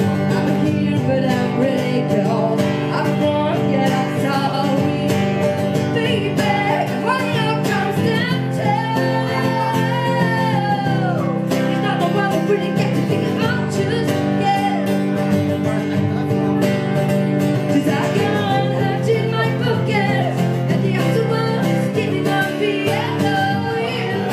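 Live acoustic guitar strummed steadily while a woman sings into a microphone: a small two-person acoustic set.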